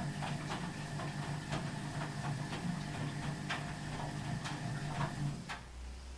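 Ardo washing machine running: a steady low hum with irregular clicks and ticks, which cuts off about five and a half seconds in, leaving a brief low rumble.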